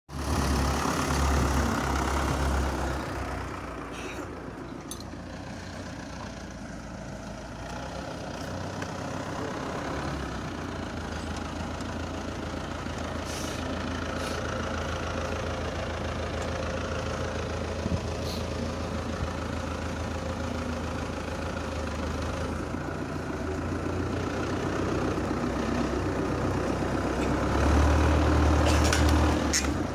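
Diesel tractor engine running steadily at idle with a low hum, louder at the start and again for a couple of seconds near the end, with a few faint clicks.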